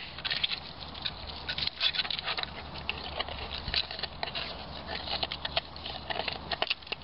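A sheet of puddle ice being nosed, pawed and bitten by two dogs, clicking and scraping against the ground and under their teeth: a rapid, irregular patter of small clicks.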